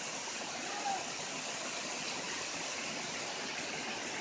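Heavy rain pouring down steadily, an even hiss of water.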